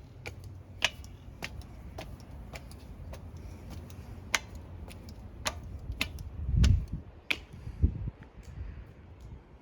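Sharp clicks about twice a second, like footsteps on hard pavement, over a low rumble, with heavier low thumps a little past the middle.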